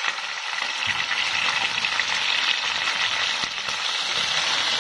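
Pieces of scad sizzling steadily in hot caramelised sugar sauce in an aluminium pot, turned over with wooden chopsticks: the start of braising the fish in caramel.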